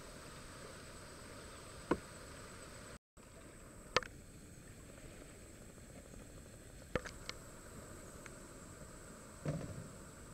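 Quiet outdoor ambience: a steady faint hiss, broken by a few short sharp taps and a duller knock near the end.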